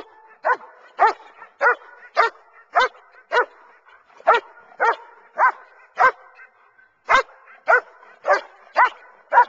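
A dog barking in play, a steady run of short, sharp barks at about two a second, some fifteen in all.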